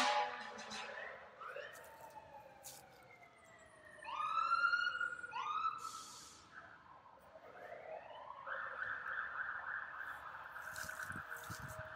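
Fire engine sirens sounding: a long falling wail, two short rising whoops about four to five seconds in, then a siren winding up near eight seconds and holding a steady high tone.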